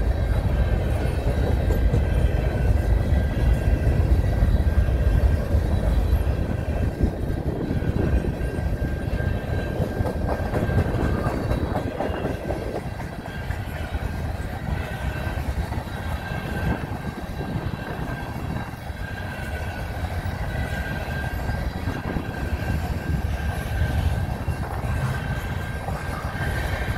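Freight train of covered grain hopper cars rolling past at close range: a steady rumble and clatter of steel wheels on the rails, louder in the first half and easing a little about halfway. A thin steady high whine runs over it.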